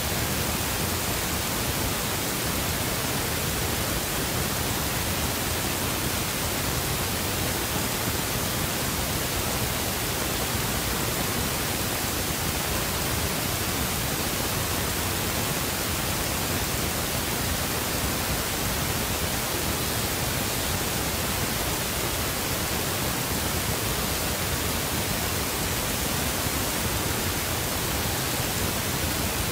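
Steady, even hiss like static, spread evenly from low to high pitches and never changing in level.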